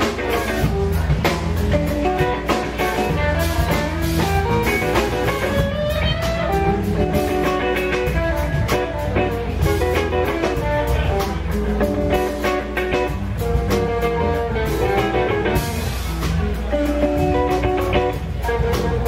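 Live blues band: an electric guitar plays lead lines with bent, gliding notes over bass and drums.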